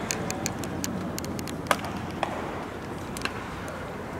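Ballpark ambience during baseball fielding practice: a steady background murmur broken by scattered sharp clicks, with a louder knock about one and a half seconds in.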